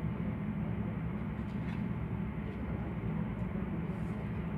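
Steady low rumble of background machinery or room noise, with a few faint ticks.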